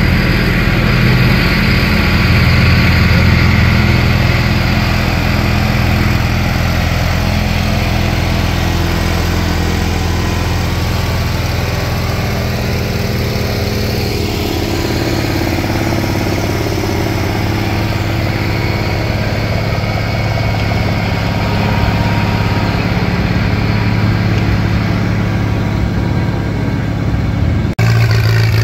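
Engines of vintage tractors running steadily as small garden tractors and then a larger farm tractor drive slowly past. The sound changes abruptly near the end, becoming a stronger, lower engine tone.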